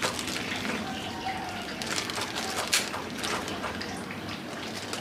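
Knife sawing at the tied neck of a water-filled plastic fish-shipping bag, with the plastic crinkling and a few sharp scrapes in the middle, over light sloshing of water.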